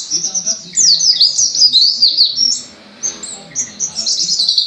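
White-eye (pleci) singing a fast, continuous run of high chirps and sweeping notes, a song filled with lovebird-style phrases. The song eases off briefly about three seconds in, then picks up again.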